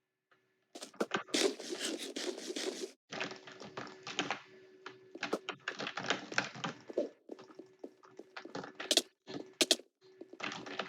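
Computer keyboard typing in quick bursts of rapid keystrokes, with short pauses between the runs.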